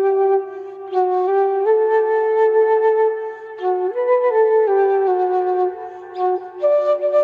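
Solo flute playing a slow melody of long held notes that step up and down, with breathy attacks at the start of each phrase.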